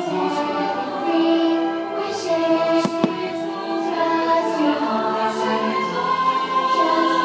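Fireworks show soundtrack: orchestral music with a choir singing, and a sharp firework bang a little before three seconds in.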